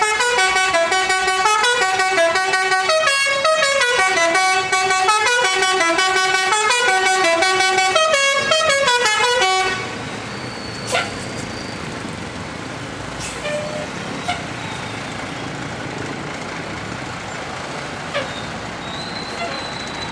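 Tour bus's basuri musical horn playing a quick melody of short notes that step up and down in pitch, for about ten seconds, then cutting off suddenly. Steady traffic noise remains afterwards, with a few faint clicks.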